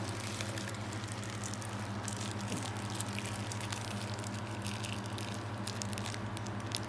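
Plastic fish-shipping bags handled, with small crackles and water squishing inside, over a steady low hum.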